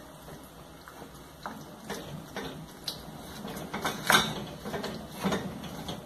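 Wooden spoon stirring ground beef in a stainless steel pan, scraping and knocking irregularly against the pan, the sharpest knock about four seconds in.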